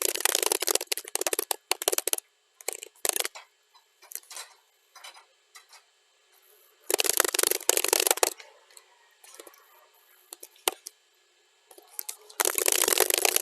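Computer keyboard typing, sped up to double speed: fast runs of keystrokes, with pauses of scattered single key clicks between them.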